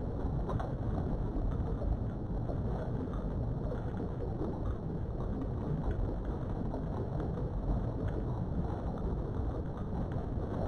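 A steady low rumbling noise, with a few faint clicks now and then.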